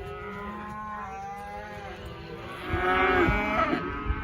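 Several cattle mooing, long calls overlapping one another, the loudest about three seconds in.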